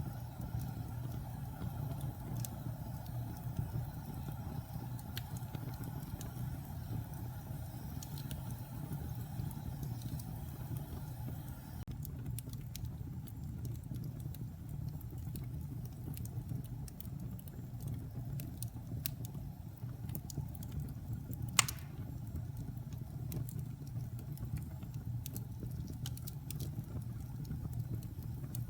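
Wood logs burning in a fireplace: a steady low rumble of the fire with scattered crackles, and one louder pop about three-quarters of the way through.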